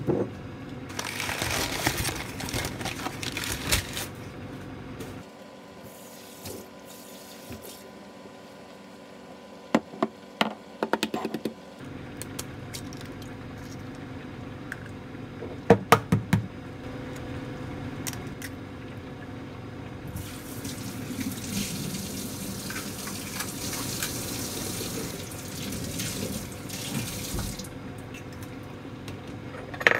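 Kitchen tap running in spells, with clusters of sharp clicks as eggs are cracked on the rim of an earthenware ttukbaegi pot.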